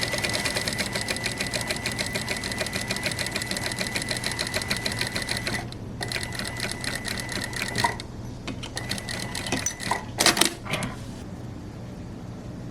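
Electric sewing machine stitching in a fast, even run with a steady motor whine, stopping briefly about five and a half seconds in, then running again in shorter stop-start spurts with a few sharp clicks near the end.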